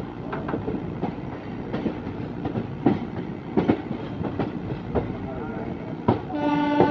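Passenger train running, heard from a carriage: a steady rumble with the wheels clicking sharply over rail joints at uneven intervals. Near the end a train horn starts, one long held note.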